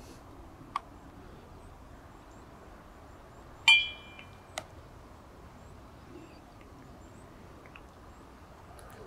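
A single sharp clink that rings briefly, about a third of the way in, with a couple of small clicks before and after it over a quiet outdoor background.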